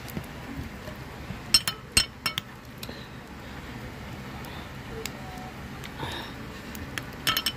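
Metal spoon clinking against a ceramic plate and glass dipping bowl: a few sharp clinks about a second and a half in, then a quick cluster of them near the end.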